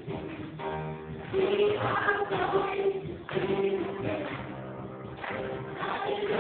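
Gospel choir of men and women singing together, holding sustained notes in phrases.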